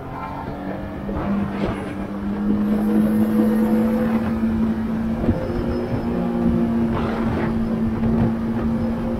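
Yamaha Tracer 900 GT's inline three-cylinder engine pulling under load with wind rushing over the onboard microphone. The engine note holds a steady pitch and grows louder over the first few seconds.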